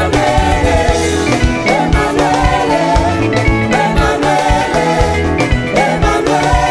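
Live band playing a Congolese sebene, the guitar-led dance section of a rumba-style song, with drums and singing.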